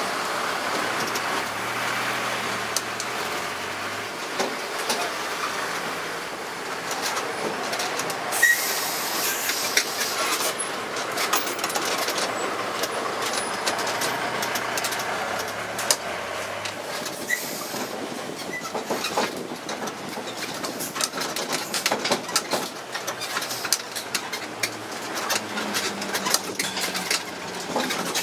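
Tourist mini road train on the move, heard from its open carriage: steady road and running noise with the carriages rattling and clicking, more so in the second half. A short burst of hiss comes about eight seconds in.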